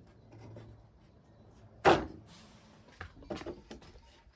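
Wooden pieces of a rack being knocked together as notched joints are fitted. One loud knock comes about two seconds in, then a quick run of lighter knocks.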